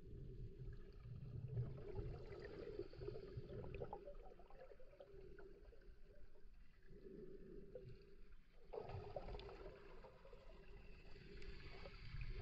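Muffled underwater sound picked up through a camera's waterproof housing: a low water rumble with a steady low hum and scattered faint crackles.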